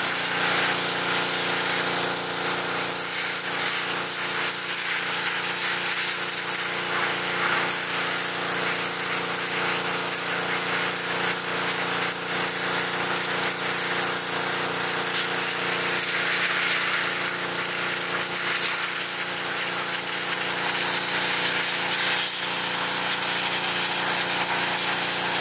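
Pressure washer running, its jet spraying steadily against a car's windshield trim: an even hiss over the steady hum of the machine's motor and pump.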